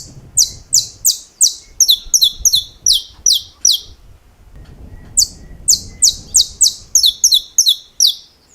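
Saffron finch (canário-da-terra) singing two phrases of sharp, downward-sweeping high notes, about three a second with some doubled, broken by a pause of about a second in the middle. These are the clipped snapping notes, the 'estalos', that are prized in this bird's song.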